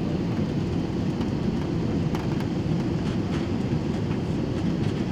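Steady engine and airflow noise inside a jet airliner's cabin as it descends on final approach to land.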